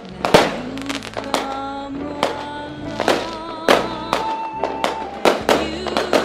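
Fireworks going off in sharp bangs about every half second, mixed over music with a singing voice.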